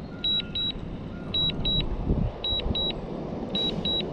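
DJI Mini 2 remote controller beeping: short high double beeps about once a second, the alert it sounds while the drone is on return-to-home, over steady background noise.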